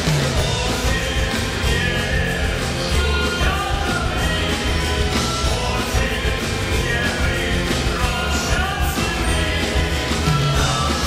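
Rock music from a live stage band with drums and keyboards, with singing over it.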